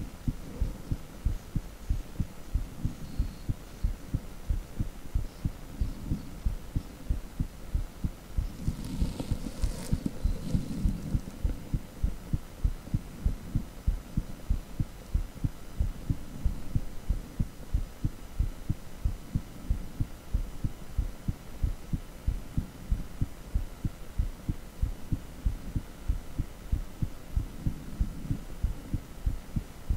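Heartbeat sound from a cardiac ultrasound (echocardiogram): a fast, regular train of low throbbing beats, about two a second. About nine seconds in, a brief hiss rises over the beats for a second or two.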